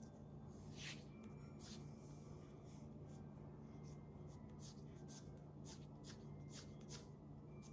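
Graphite pencil shading on paper: short, quick scratching strokes, about two a second, faint, over a low steady hum.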